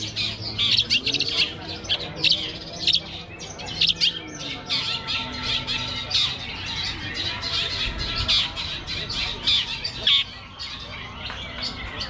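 Caged long-tailed shrike (cendet) singing: a fast, unbroken run of short, sharp chirps and harsh squawks that thins out over the last two seconds.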